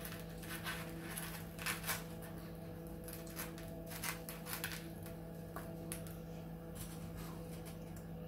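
Toasted garlic bread being torn apart by hand: a run of short crackles from the crisp crust, thinning out after about five seconds, over a steady low hum.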